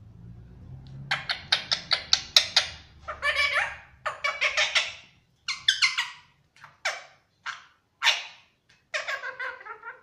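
Indian ringneck parrot vocalising: a quick run of short, shrill calls starting about a second in, then further bursts of calls with short gaps between them.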